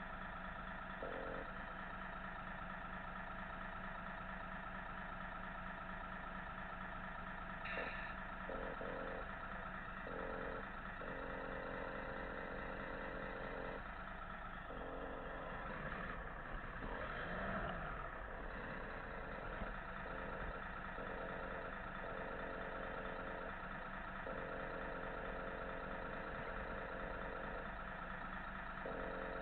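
Simulated truck diesel engine from an RC model truck's sound module, idling steadily with a low hum and a short swell in the middle.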